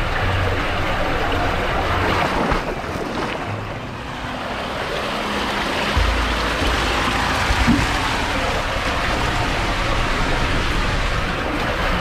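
Water rushing and spraying through an enclosed plastic tube water slide as a rider slides down it, a steady noisy rush. It eases off around four seconds in, then picks up again with a deeper rumble about six seconds in.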